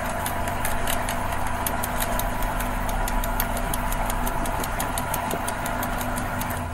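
Motorboat engine running steadily under a constant rushing noise.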